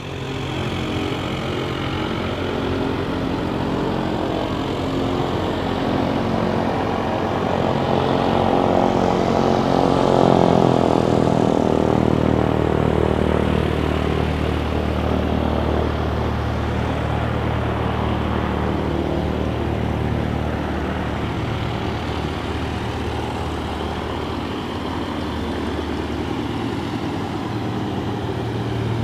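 Propeller aircraft engine running, swelling and shifting in pitch about ten seconds in, then settling into a steady drone.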